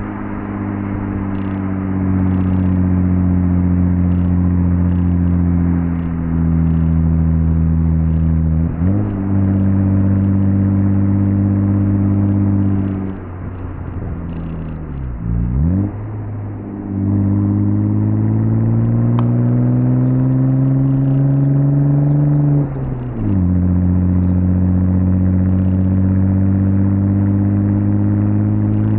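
Audi S4 B5's 2.7-litre twin-turbo V6 driving under load, its note holding steady and then shifting with gear changes. Midway the throttle lifts and the engine quietens, with a quick rev blip. It then climbs in pitch under acceleration and drops sharply at an upshift a few seconds before the end.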